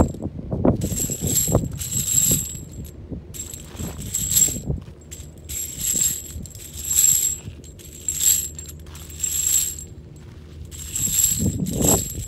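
Wire-cage rolling nut gatherer pushed over dry ground, picking up spent brass cartridge casings. The brass casings jingle and clink against the wire cage in a metallic rattle that comes in bursts about once a second.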